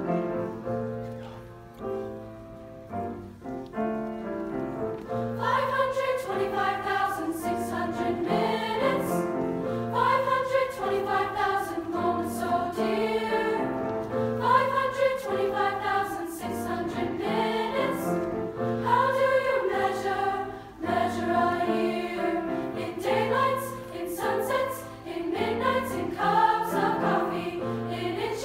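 Grand piano playing an introduction, then a girls' choir begins singing in parts with the piano about five seconds in.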